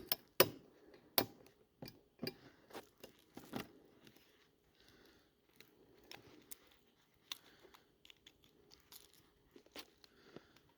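Swiss Army knife and metal hook hardware being worked on a fishing lure, making irregular sharp clicks and light scrapes. The loudest clicks come in the first four seconds, then the clicking goes on fainter and sparser.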